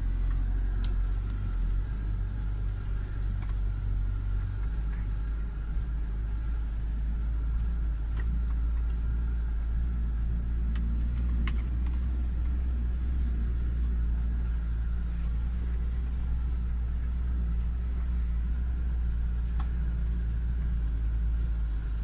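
2019 UAZ Patriot with its ZMZ Pro petrol engine driving slowly over rough ground, heard from inside the cabin: a steady low engine drone and rumble, with a few light clicks and knocks here and there.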